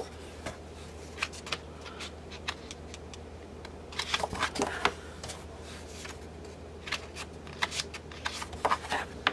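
Sheets of thick 12-by-12 cardstock in a paper pad being turned over one after another, with irregular rustles and flaps of stiff paper. The handling is busiest about four to five seconds in and again near the end.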